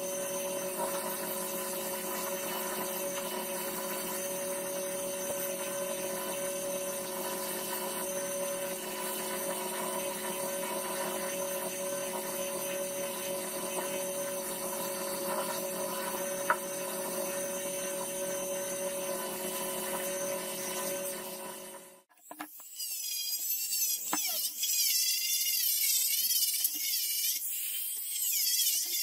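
Belt sander running steadily with a wooden hatchet handle held against the belt. About 22 seconds in it cuts off, and a high-speed rotary tool takes over with a high whine that wavers up and down in pitch as it grinds.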